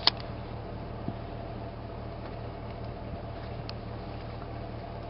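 AR-style rifle being handled: one sharp click near the start, then two faint clicks, over a steady low hum.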